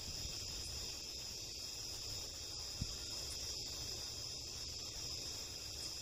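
A night chorus of crickets trilling steadily and high-pitched, with a faint low rumble underneath and one small click about three seconds in.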